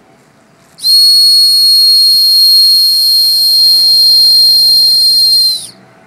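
One long blast on a whistle blown close to the microphone: a loud, steady, very high single note held for about five seconds, sagging slightly in pitch as it cuts off.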